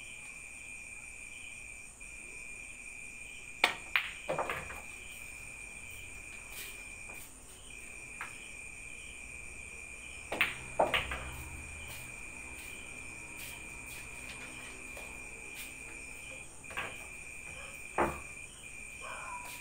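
Pool balls clacking: sharp clicks of the cue tip on the cue ball and balls colliding on a pool table, in two clusters about 4 and 10–11 seconds in, the second followed by a low rumble of balls rolling on the bed. Near the end come two more knocks as balls are gathered. A steady high-pitched chirring of crickets runs underneath.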